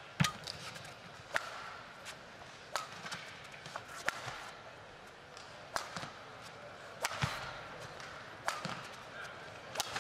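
Badminton racket strikes on a shuttlecock during a rally: sharp hits about every one and a half seconds, eight in all, over a faint arena background.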